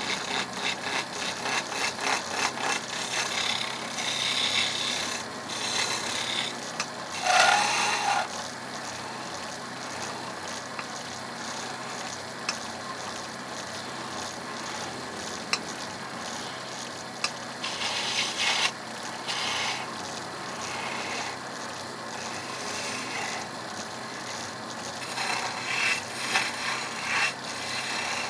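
Hand chisel cutting and scraping a spinning wooden blank on a wood lathe: a continuous rasping of steel on turning wood, with several louder bursts as the tool bites, the loudest about a quarter of the way in.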